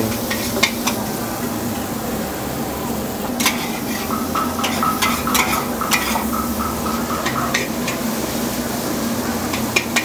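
Egg noodles frying in a wok over very high heat: a steady sizzle, with a metal spatula clanking and scraping against the wok at irregular intervals and a steady low hum underneath.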